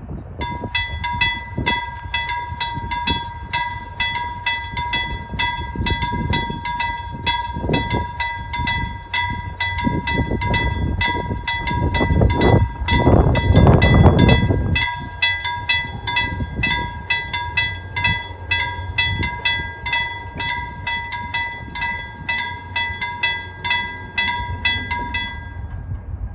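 Swedish level-crossing warning bell ringing in quick, even strokes while the full barriers come down, then stopping once they are down near the end. Underneath, a fluctuating low rushing noise, loudest about halfway through.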